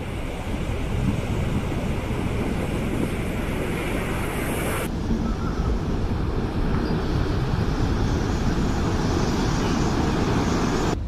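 Wind buffeting the microphone and surf breaking on a beach, over a steady low engine rumble. The sound shifts abruptly about five seconds in.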